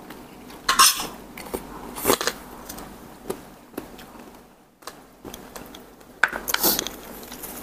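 Cutlery scraping and clinking against a plate in three short bursts, about a second in, about two seconds in and again past six seconds, with a few light clicks between.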